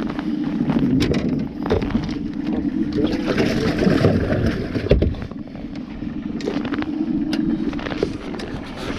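A boat's outboard motor running steadily, with scattered knocks as things are handled on the deck.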